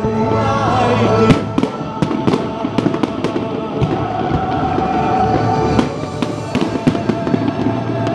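Aerial fireworks bursting in a rapid run of bangs and crackles, the loudest bang about a second in, over music playing throughout.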